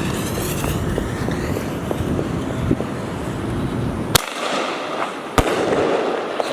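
Fireworks going off: a steady dense crackle and hiss, then two sharp cracks in the second half.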